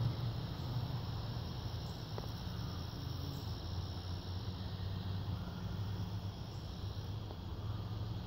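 Steady high-pitched insect chorus over a continuous low hum that swells and fades.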